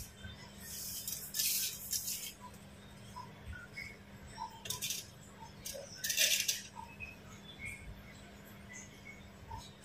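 A few short rasping strokes of hand work, the longest about a second in and again around six seconds, with faint high chirps between them over a low steady hum.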